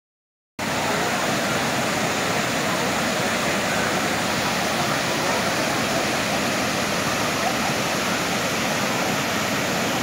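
Steady rush of the Krka waterfalls cascading into a pool, starting abruptly about half a second in.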